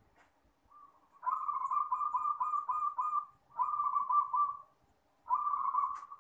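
Zebra dove (perkutut) cooing: three rattling, pulsed phrases. The first and longest lasts about two seconds, a shorter one follows, and a third begins near the end.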